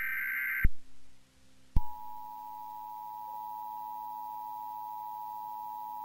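The tail of an Emergency Alert System SAME header burst of warbling digital data tones cuts off with a click well under a second in. After a click, a little under two seconds in, the EAS attention signal starts: a steady two-tone beep held unchanged to the end. A low steady hum runs underneath.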